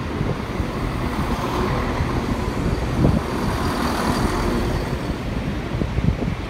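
A Class 170 Turbostar diesel multiple unit moving slowly past close by along the platform, its underfloor diesel engines and wheels running with a steady rumble.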